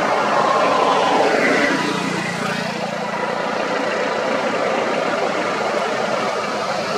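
Vehicle engines running and idling with steady traffic noise, a little louder in the first two seconds.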